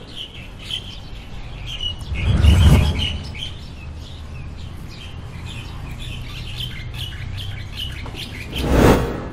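Small birds chirping over a low steady hum, with two loud swelling whooshes, one about two and a half seconds in and one near the end.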